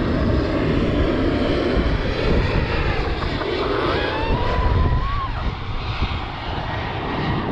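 Jet noise from the four turbofan engines of a Lockheed C-5M Galaxy transport as it flies low overhead: a loud, steady, deep rumble.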